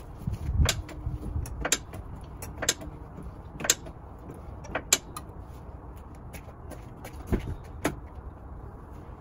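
Sharp metallic clicks and knocks, roughly one a second with a gap in the middle, from work on a car's front wheel hub and brake assembly, over a low rumble.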